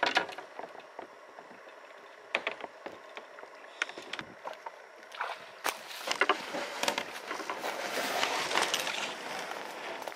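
Plastic fishing kayak being paddled: scattered knocks and clicks of the paddle and gear against the hull, with the swish of water growing louder in the second half.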